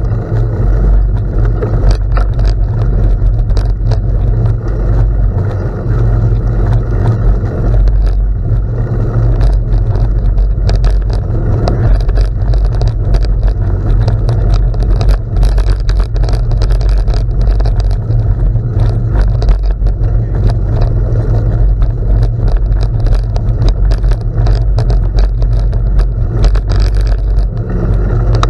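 Wind rumbling hard on the microphone of a moving bicycle, with the steady crackle of tyres rolling over gravel and small stones.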